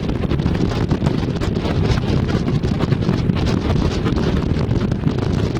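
Wind buffeting the microphone over the steady low rumble of a canvas-topped 1984 Land Rover on the move, heard from its open back.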